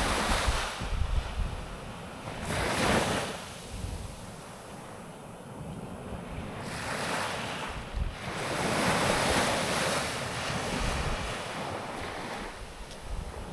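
Sea waves breaking and washing up a sandy beach, swelling and fading in several surges, with wind buffeting the microphone.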